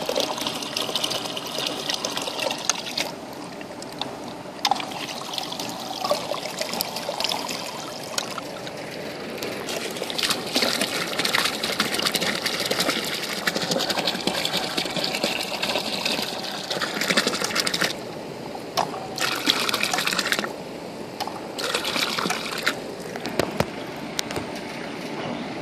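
Water from the discharge hose of a submerged Attwood Sahara 500 GPH bilge pump pouring and splashing into a swimming pool. The pump is running and pushing out its full flow. The splashing thins out briefly a few times near the end.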